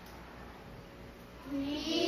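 Quiet classroom room tone, then about one and a half seconds in a child's voice starts speaking.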